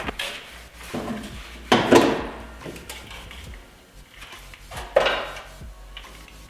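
Metal hand tools clinking and knocking as they are handled: four or five separate knocks and clatters, the loudest about two seconds in.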